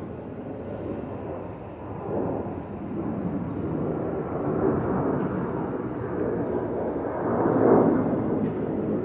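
Twin-engine jet airliner climbing overhead after takeoff: a steady jet-engine rush that swells about seven to eight seconds in.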